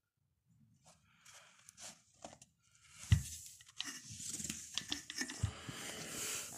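Handling noise as an unpowered angle grinder is moved about on a carpet: irregular rustling and scraping with light clicks, and a dull thump about three seconds in.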